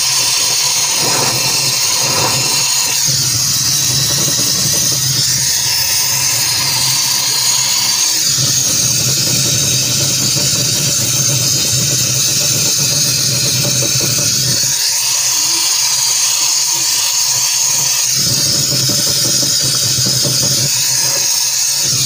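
Brazing torch flame hissing steadily over a low hum as it heats a puncture in a refrigerator freezer's evaporator wall to clean the leak area. The tone shifts slightly a few times.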